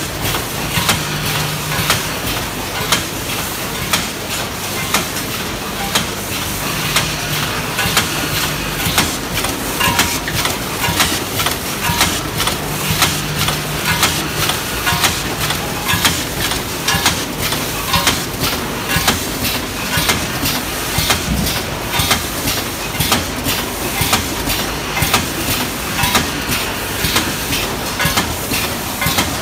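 Automatic vertical form-fill-seal snack packing machine running, with a multihead weigher feeding it. It makes regular sharp clacks at about one a second as it cycles through bags, over a steady mechanical clatter, and a low hum comes and goes a few times.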